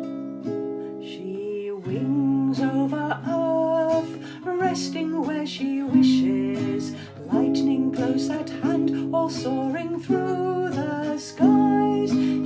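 Acoustic guitar playing a slow hymn accompaniment, joined about two seconds in by a woman singing.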